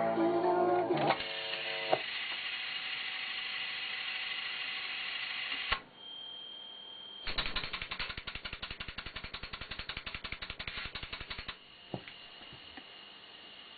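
Eola RM322SA car radio sounding through its speaker: a moment of music, then hiss with a thin whistle, a short steady tone, about four seconds of rapid, even ticking, and quieter hiss with a whistle near the end.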